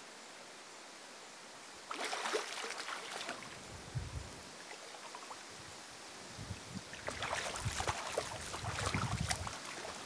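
A hooked eel splashing and thrashing at the water's surface as it is reeled in toward the bank. The splashing starts suddenly about two seconds in, dies down, then comes back in a busier run of splashes over the last three seconds.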